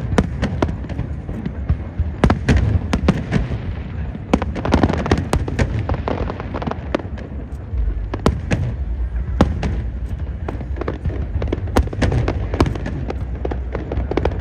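Fireworks display: many sharp, irregular bangs and crackles, several a second, over a continuous low rumble of distant bursts.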